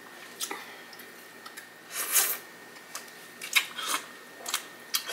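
Close-up wet biting and sucking on juicy grapefruit flesh pulled off the rind: several short smacking slurps, the loudest about two seconds in.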